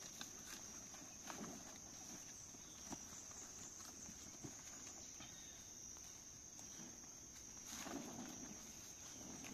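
Faint, steady high-pitched chirring of crickets, with a few soft scuffs and small knocks of handling and footsteps in loose soil about a second in and again near the end.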